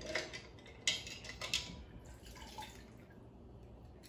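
Water sloshing and dripping as a hand lifts objects out of a glass bowl of water. There are several short sharp taps, the loudest about a second in, and a few fainter ones near the middle.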